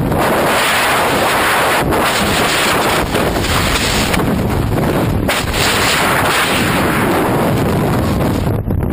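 Freefall wind rushing and buffeting hard against the camera microphone during a tandem skydive, a loud, unbroken roar with frequent sharp gusts.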